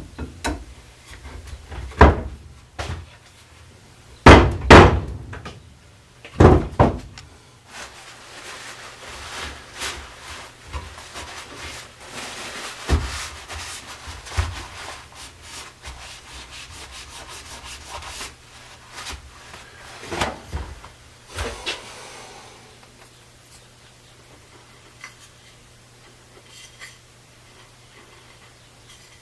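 Wooden chair parts knocked and handled: several loud wooden knocks in the first seven seconds, then a long stretch of rubbing or scraping on wood with a few more knocks. It goes quiet after about twenty-two seconds.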